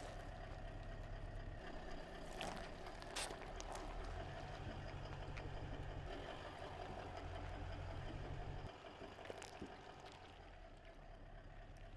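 Low, steady rumble of a car creeping forward at walking pace, with a few faint sharp crunches as its tyre crushes food items on the asphalt. The rumble drops away near the end.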